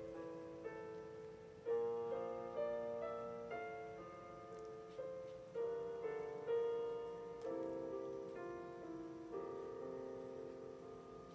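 Background piano music: gentle notes and chords struck one after another, each fading away slowly.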